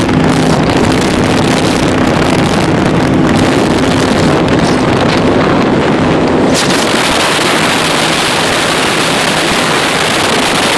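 Baja 272 powerboat's engine running at speed, a steady drone under heavy wind on the microphone. About six seconds in, the engine tone drops back and a rush of wind and water takes over.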